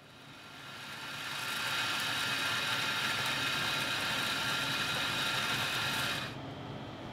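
Electric coffee grinder running with a steady whine, fading in over the first two seconds and stopping abruptly about six seconds in.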